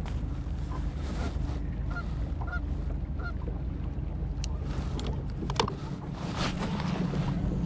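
Boat motor running steadily under wind and water noise, with a bird giving several short calls in the first few seconds. A few sharp clicks and knocks come in the second half.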